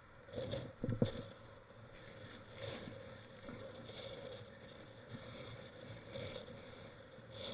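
Mountain bike riding noise picked up by a bike-borne action camera: a steady rolling rush with a few sharp knocks about a second in, the loudest of them right at one second.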